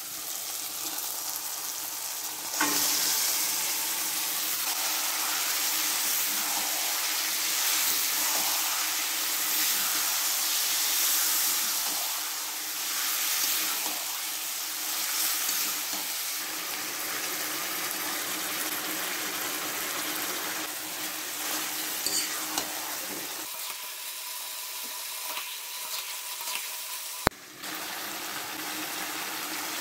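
Marinated chicken frying in hot oil with onion, garlic and ginger: a steady sizzle that suddenly gets louder a couple of seconds in, with stirring in the pan. A single sharp knock comes near the end.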